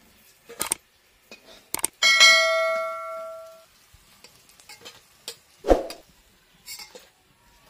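A metal spatula knocking and scraping against a metal kadai and steel plates while fried pumpkin fritters are lifted out. About two seconds in, one strike sets a metal dish ringing for over a second.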